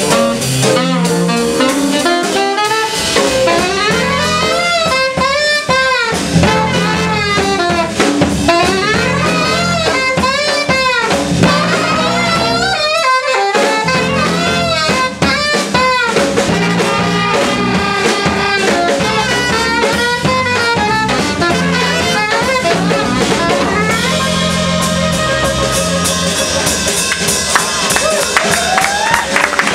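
Live jazz: a saxophone playing a busy, sliding melodic line over a drum kit. The playing drops out for a moment about 13 seconds in.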